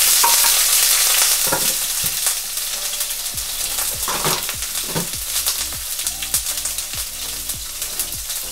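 Sliced red bell pepper sizzling in hot oil in a frying pan, loudest as it goes in and easing to a steady sizzle with scattered crackles.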